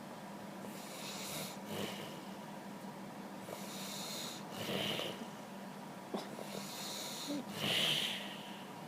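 A man snoring in his sleep: three snores a few seconds apart, the last the loudest, over a steady low hum.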